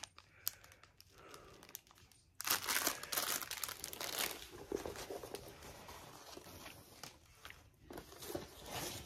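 Shrink-wrapped plastic bundle of diamond-painting drill bags crinkling as it is handled and set down, loudest from about two and a half seconds in, followed by softer rustling as a rolled canvas is unrolled.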